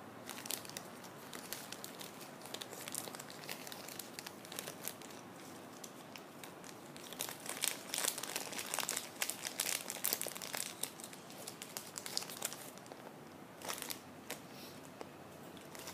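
Thin plastic wrapping crinkling and crackling in irregular fits, busiest in the middle, as small miniature toy pieces are taken out of their plastic bags.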